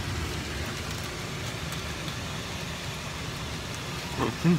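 Steady car-cabin noise: a low engine and road rumble under an even hiss. Right at the end a voice begins a short wavering hum.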